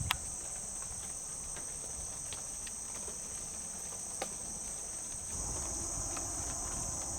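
Steady, high-pitched chorus of insects in the woods, with a couple of faint clicks and light rustling.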